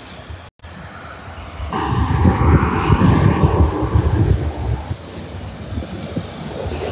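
A semi-truck with a trailer driving past on the road, its engine and tyre noise swelling about two seconds in with a steady whine, then easing off near the end.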